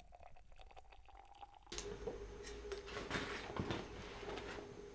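Hot water trickling from a gooseneck kettle into a travel flask, its faint tone slowly rising as the flask fills. About two seconds in, this gives way to louder rustling and clicking as a fabric bag is handled, over a steady hum.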